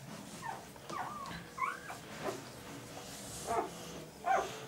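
Newborn Irish setter puppies whimpering, a string of short, high squeaks that rise and fall in pitch.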